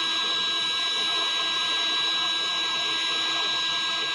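MAF India electric heat gun running steadily: its fan blows with a constant high whine over a rush of air as it heats a plastic welding rod into a crack in the tub.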